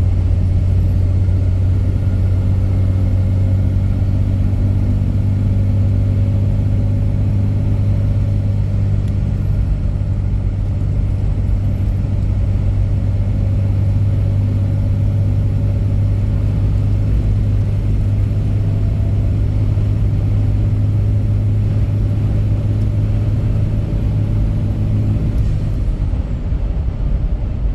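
A diesel vehicle fitted with an exhaust brake, running steadily while driving. Its engine and exhaust make a deep, even drone that shifts slightly a couple of seconds before the end.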